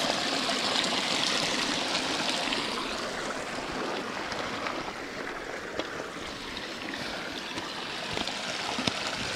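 A small mountain creek rushing over a little cascade into a pool. The steady water sound is strongest for the first few seconds, then eases somewhat.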